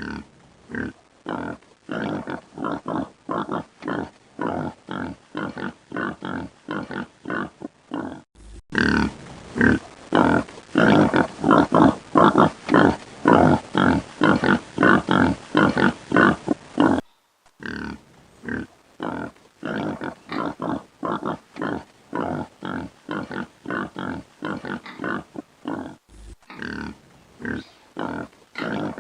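Pigs grunting over and over, short grunts about two to three a second. The run breaks off briefly a few times, and the grunting is louder through the middle stretch.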